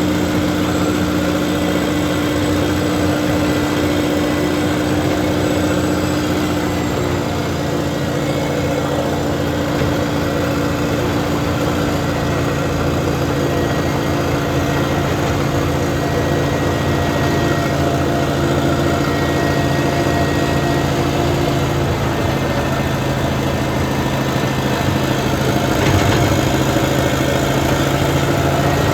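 Diesel engine of a compact track loader running steadily, its engine speed dropping a few seconds in and shifting again later as the machine works.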